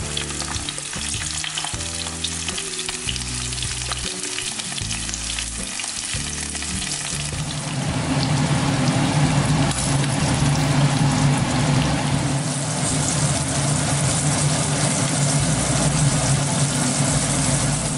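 Tuyo (dried salted fish) frying in very hot oil in a nonstick pan, the oil hot enough to crisp the fish: a steady crackling sizzle that grows louder about eight seconds in.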